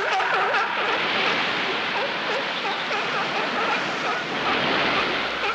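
Surf washing at a Cape fur seal rookery, with many short overlapping bleats and calls from the seals.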